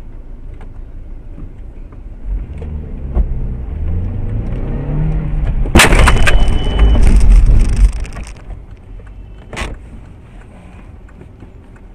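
A road vehicle collision: a low engine and road rumble builds, then a sudden loud crash about six seconds in is followed by about two seconds of loud crunching noise. A second sharp bang comes near ten seconds.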